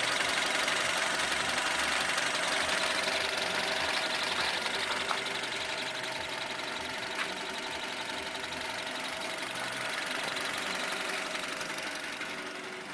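Volkswagen Group CWVA 1.6-litre four-cylinder petrol engine running at idle with a steady noise and a whistle, a sound the owner finds strange and unpleasant.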